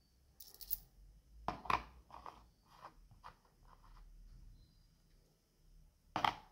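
Small metal coins being handled: light clinks from a handful of coins and taps as single coins are set down and nudged into place on a hardcover notebook cover. The clinks and taps come irregularly, with the sharpest about a second and a half in and another near the end.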